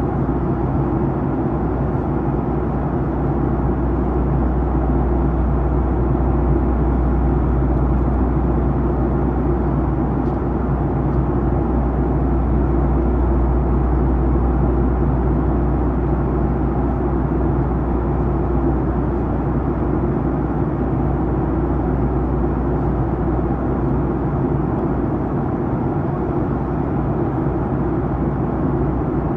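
Steady airliner cabin noise inside a Boeing 737-900ER during descent: an even rush of airflow mixed with the hum of its CFM56-7B turbofans, heavy in the low range with a few steady low hum tones and no change throughout.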